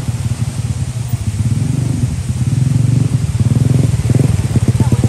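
Small motorcycle engine running close by with a rapid, even beat, growing louder about three seconds in.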